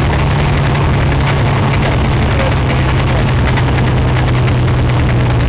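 T70 Spyder sports car's engine running steadily at cruise, a low even note under heavy wind and road noise in the open cockpit.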